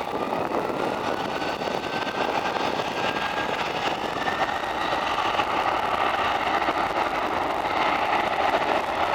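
Boeing 767-300 jet engines spooling up for takeoff. A whine climbs in pitch over the first few seconds, then holds over a steady rush that slowly grows louder.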